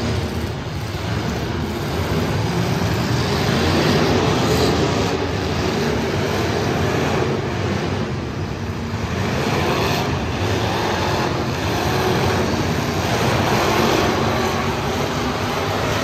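Demolition derby car engines running and revving together in a dense, steady rumble, with no distinct crash impacts standing out.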